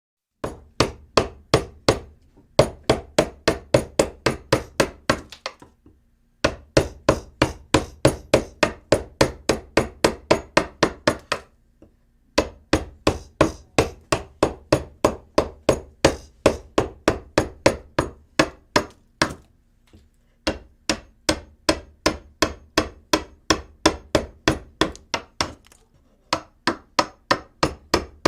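Rapid hammering during indoor construction work, sharp evenly spaced blows about four to five a second, in runs of several seconds with brief pauses between them.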